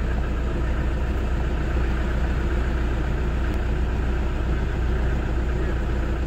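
Toyota Innova's 2KD-FTV four-cylinder diesel engine idling steadily.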